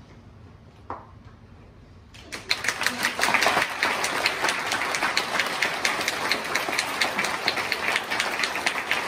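A hall full of schoolchildren applauding, the dense clapping starting suddenly about two seconds in after a quiet opening with a single knock.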